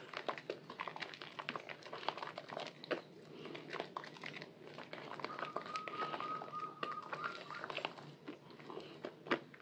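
Hands squeezing and kneading a soaked bar of white soap in thick lather: wet squishing with many small crackles and pops of bursting bubbles. A steady high tone sounds for about two seconds midway.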